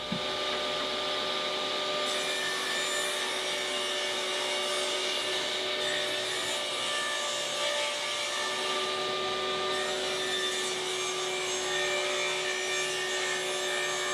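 Table saw cutting a groove along the full length of a 1x6 board, the blade running steadily with a constant whine over the rasp of the cut.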